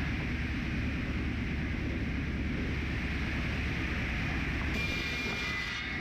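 Wood-Mizer EA3000 edger's circular saw blades spinning with a steady low machine rumble; for about a second near the end a board is cut, adding a higher ringing tone and a hiss of chips.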